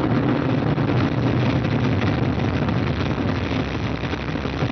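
Ariane 5 rocket's Vulcain main engine and two solid rocket boosters firing just after liftoff: a loud, steady rumble.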